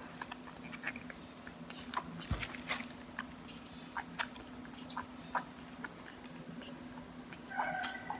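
Baby monkey sucking and swallowing juice from a feeding bottle: scattered small wet clicks over a steady low hum. A short pitched call comes near the end.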